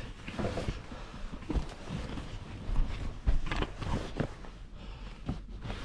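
Rustling and scattered light knocks from a backpack and clothing being handled and bumped about, over a faint steady low hum.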